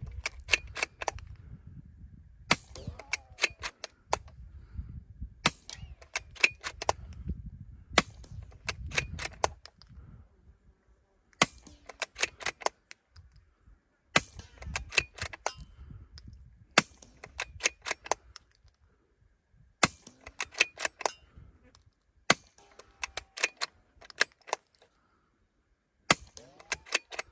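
About ten quiet suppressed shots of subsonic CCI Quiet .22 LR from a bolt-action Christensen Arms Ranger 22 rifle with a Little Spoon silencer, one every two to three seconds. Each shot is followed by a short run of metallic clicks as the bolt is worked.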